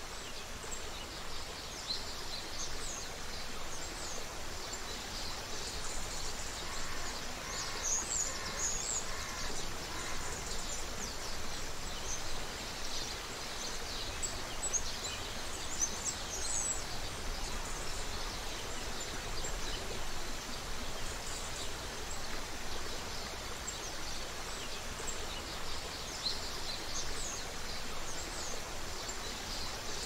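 Creek water running steadily, with small birds chirping over it throughout. A lower bird call repeats several times about a quarter of the way in.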